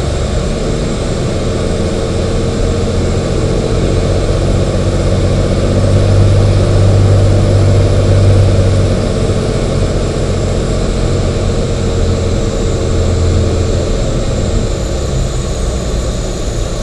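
Cirrus SR22's six-cylinder piston engine and propeller droning steadily, with wind noise, heard from inside the cockpit during final approach and touchdown. The drone swells a little in the middle, then eases.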